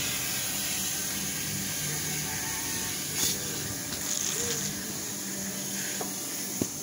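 Car wash machinery running: a steady hiss over a low hum. A single sharp click comes near the end.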